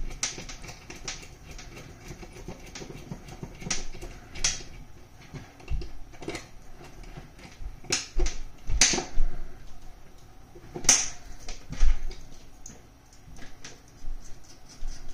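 Irregular clicks, taps and short scrapes of small metal coax connectors and adapters being fitted and screwed together, with cables handled on a tabletop.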